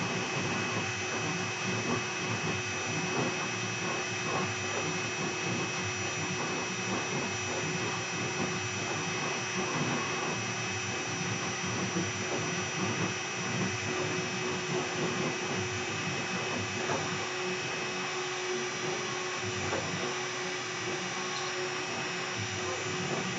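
Air-cooled CNC router spindle running steadily while V-carving wood, a constant whine over the noise of the cut and dust extraction.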